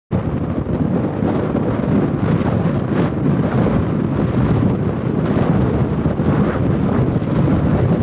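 Blizzard wind buffeting the microphone: a continuous low rumble that rises and falls slightly.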